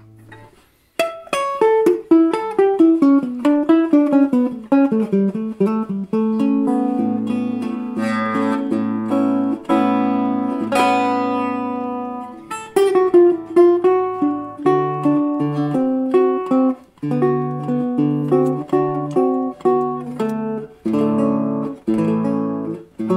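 Instrumental guitar music with individually plucked notes, starting about a second in.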